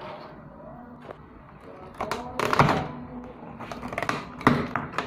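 Knocks and thuds of an air conditioner outdoor unit's packaging being handled during unboxing, quiet at first, then several sharp thunks in the second half.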